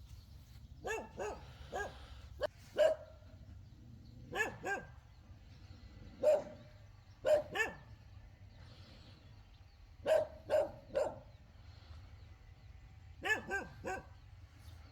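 A dog barking repeatedly in short bouts of two or three barks.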